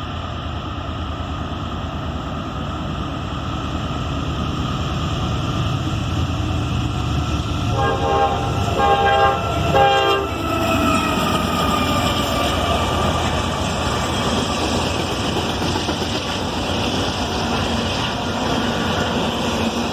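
Norfolk Southern intermodal train passing with a steady rumble of locomotives and wheels. About eight seconds in, the lead locomotive's five-chime Nathan K5LA horn sounds a quick run of short blasts lasting about two seconds.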